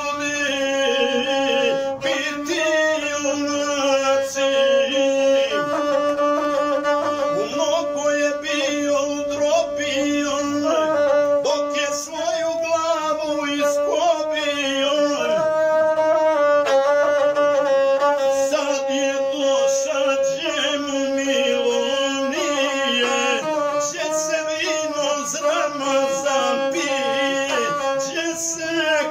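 Gusle, the Balkan bowed folk fiddle, played in a fast, ornamented melody over a steady held pitch, with a man singing along in the epic style.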